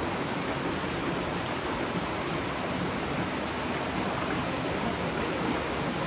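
Steady rush of water from a shallow rocky stream and a small waterfall cascading over rocks.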